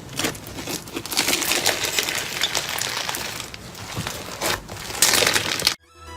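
Crisp, dense crackling and crinkling of a crunchy material being squeezed and pressed, growing louder about five seconds in, then cutting off abruptly; electronic music starts right at the end.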